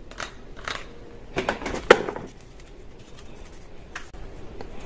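A few light clicks and knocks, spaced irregularly, with a cluster about one and a half seconds in and the sharpest click about two seconds in.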